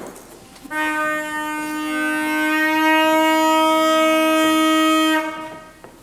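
One long, steady note on a wind instrument as part of the live performance's music, starting about a second in, held without wavering for about four and a half seconds and fading near the end.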